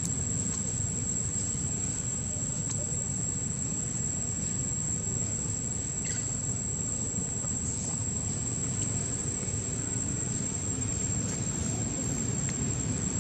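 Insects buzzing in one steady, unbroken high-pitched drone over a steady low background rumble.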